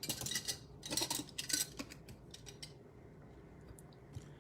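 Trading card pack being opened and its cards handled: a quick run of crisp snips, clicks and rustles that stops about two and a half seconds in.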